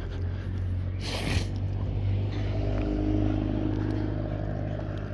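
A car driving along the road, its engine hum growing steadier and louder from about two seconds in. There is a brief rustling rush about a second in.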